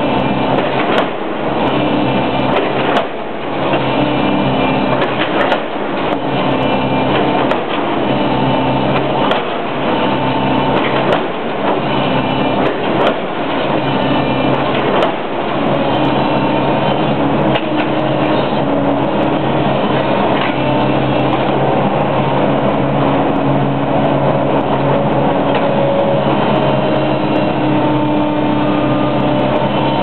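Tracked hydraulic excavator's diesel engine working hard as its bucket pounds steel trench shoring panels down into the ground. Clanking metal knocks come about once a second through the first half. After that the sound is mostly the steady engine, pressing with only occasional knocks.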